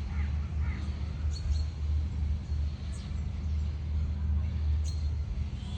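A steady low rumble, with a few short bird chirps over it, about four in all.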